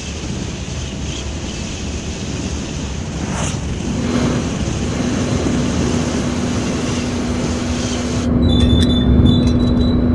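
Sound-designed vehicle engine: a steady low rumble with hiss, joined about four seconds in by a steady hum. A little after eight seconds the sound changes suddenly and grows louder, with a thin high whine and light clicks.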